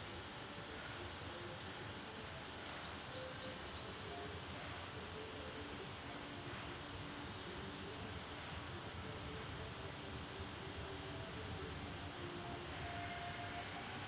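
Weaverbirds giving short, high, rising chirps at irregular intervals, several in a quick run about three seconds in, over a steady outdoor hiss.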